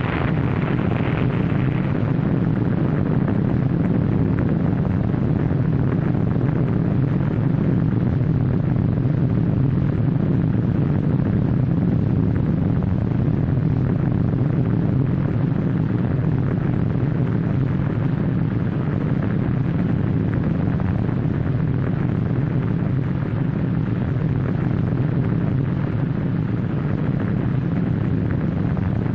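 Steady low rumble of an atomic bomb blast as dubbed onto an old film soundtrack, with a brighter hiss fading out over the first two seconds.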